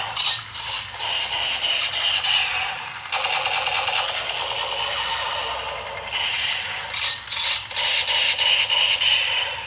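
Battery-powered toy revolver with a light-up spinning cylinder playing its electronic firing sound effect: a rapid buzz that breaks off and starts again about three and six seconds in.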